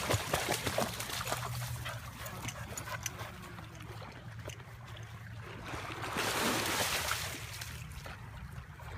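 Dogs moving and scuffling, with many light clicks in the first few seconds and a loud rushing noise about six seconds in.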